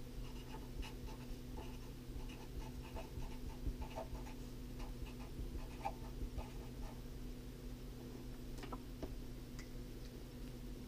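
Felt-tip marker writing on paper: short scratchy strokes for most of the first seven seconds, then a few light clicks. A low steady hum runs underneath.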